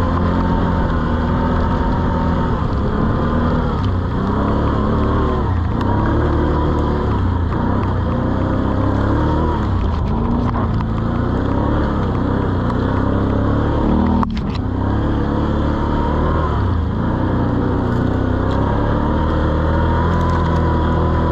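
An 800 cc quad's engine running under way, its revs rising and falling again and again with the throttle. There is one brief knock about two-thirds of the way through.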